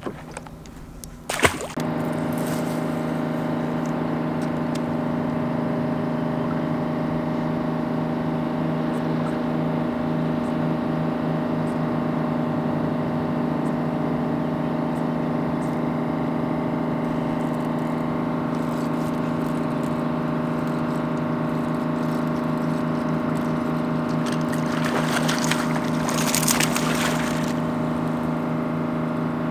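Electric trolling motor on a bass boat running at a steady speed, a constant even hum. A brief rush of noise comes about 25 seconds in.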